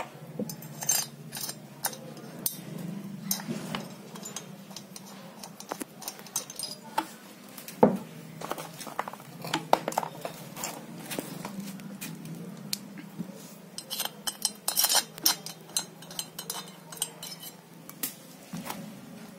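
Light metallic clicks and clinks of a 4 mm Allen key working the cylinder bolts of a petrol chainsaw's new bore kit, metal tapping on metal at irregular intervals, over a low steady hum.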